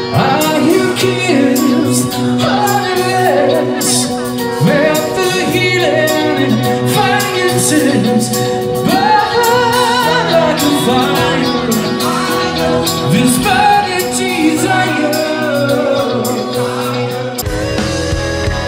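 A live band with electric guitar and drums plays a song under a male lead vocal with backing singers. About a second before the end the sound changes suddenly and a deeper bass comes in.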